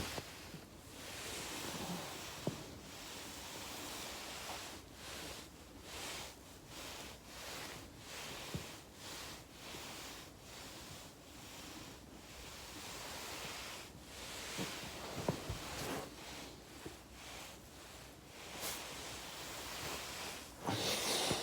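Body rolling back and forth over a foam roller: a soft swishing rustle of clothing and skin against foam that swells and fades in uneven pulses, with a few soft clicks.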